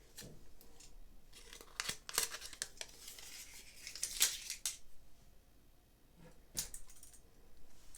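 Paper wrapper of a double-edge safety razor blade rustling and tearing as the blade is unwrapped, in several short rasping strokes with a longer one around the middle.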